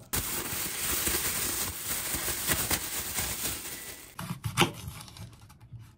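A thin plastic bag crinkling and rustling as it is shaken to coat salted zucchini slices, a dense crackle for about four seconds. Then come a few sharp knocks, the last the loudest.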